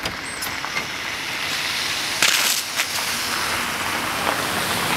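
A freerunner's shoes landing and scuffing on a gritty gravel-and-snow path, a loud scrape about two seconds in after a few light clicks. Steady outdoor noise underneath that grows toward the end.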